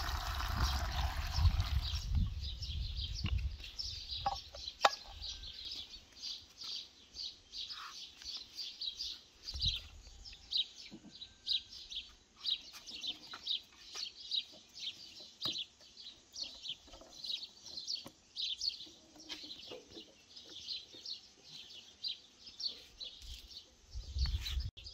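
Water poured from a bowl into a metal pot of salted eggplants for about the first two seconds, then small birds chirping rapidly and continuously, with a few light clicks.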